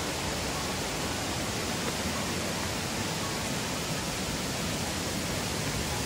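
Steady rush of water from a rocky forest stream and its waterfalls, an even hiss with no breaks.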